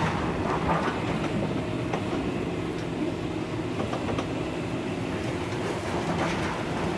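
A tipper truck's diesel engine running steadily while its bed is raised, with a few faint knocks of stones sliding out of the tipping body.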